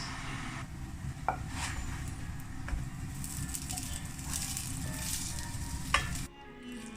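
Food sizzling in a frying pan while being stirred, with a couple of sharp clinks of a utensil against the pan. The sizzling cuts off shortly before the end.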